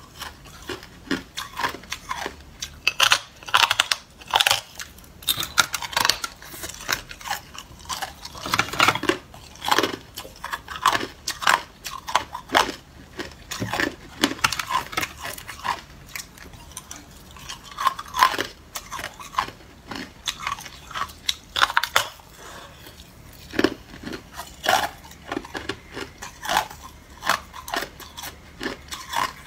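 Hard, clear ice being bitten and chewed: sharp, irregular crunches and cracks as pieces are snapped off the edge of a thick ice slab and crushed between the teeth.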